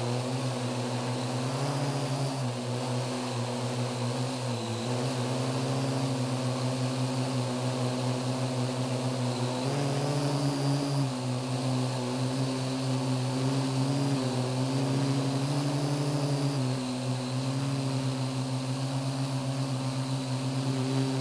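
Parrot AR.Drone quadcopter's four electric motors and propellers buzzing, picked up close by the camera riding on the drone's hull. The pitch steps up and down several times as the motors change speed.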